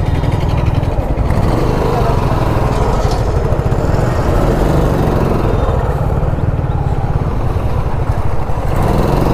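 Motorcycle engine idling steadily with a low, even rumble.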